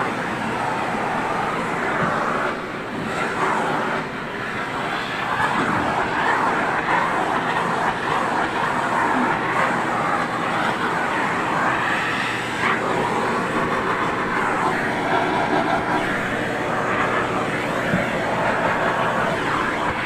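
Vacuum cleaner running steadily, its hose nozzle being drawn over a dog's coat, the rush of the suction shifting as the nozzle moves across the fur.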